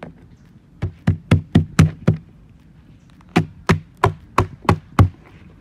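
A knife knocking against a slipper lobster's shell and the wooden table as the lobster is cut for cleaning. There are two runs of about six sharp knocks each, roughly three or four a second, with a pause of just over a second between them.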